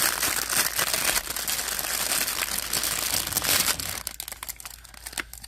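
Clear plastic bag crinkling and rustling as it is handled and opened. The crinkling is dense for about four seconds, then thins to scattered crackles.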